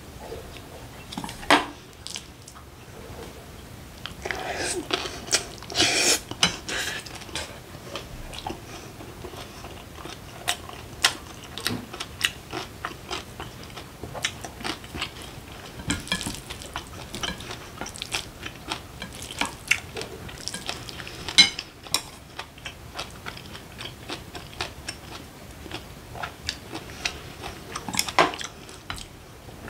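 Mukbang eating sounds: chopsticks and a spoon clicking and scraping against a glass bowl and a side-dish jar, many short sharp taps spread throughout, with chewing of curry rice and pickled godeulppaegi greens between them.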